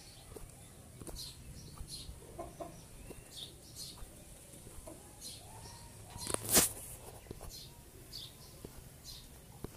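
Pet green parakeet making a string of short, high chirps about twice a second, with one loud squawk about six and a half seconds in.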